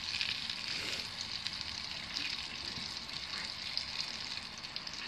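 Oliebollen (Dutch dough balls) deep-frying in hot oil: a steady frying hiss with faint scattered crackles.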